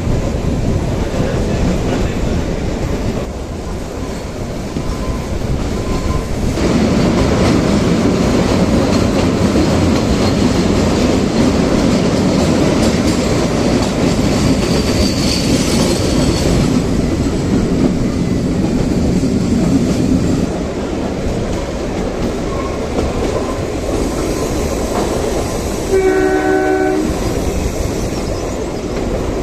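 Kalka–Shimla narrow-gauge toy train running, with a steady rumble and clatter of wheels on the track that grows louder for a long stretch in the middle. About 26 seconds in, the train's horn sounds once for about a second.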